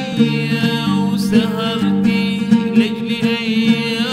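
A man singing an Iraqi song with a wavering vibrato, accompanied by an oud, over steady held low notes.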